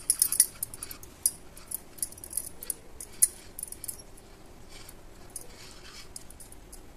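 Silicone brush dabbing and spreading oil in the cups of a stainless-steel idli plate: a string of light, irregular ticks and clinks of the brush on the metal, busiest at the start.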